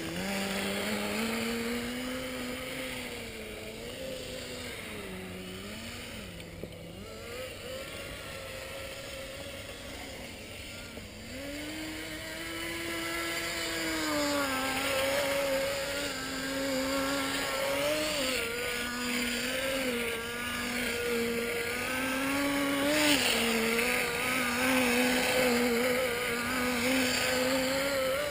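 Small nitro glow engine of a Kyosho Blizzard RC snow vehicle running, its pitch rising and falling again and again with the throttle. It grows louder about halfway through.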